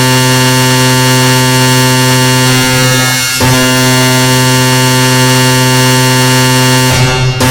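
A loud, sustained, buzzing cluster of many synthesized notes sounding at once, a 'black MIDI' noise-challenge render; it breaks off briefly about three and a half seconds in and again near the end before carrying on.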